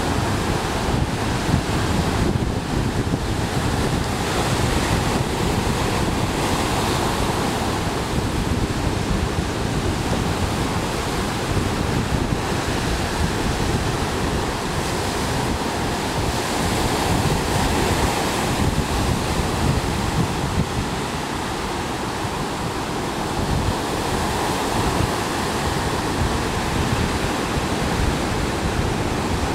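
Ocean surf breaking and washing ashore in a steady rush, with wind buffeting the microphone in low rumbling gusts.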